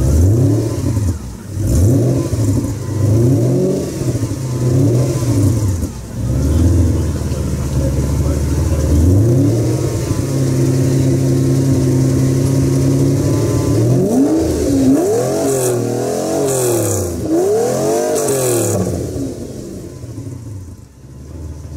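A supercar engine being revved: the pitch climbs and falls in a series of blips, holds steady for a few seconds in the middle, then rises and falls again before dying away near the end.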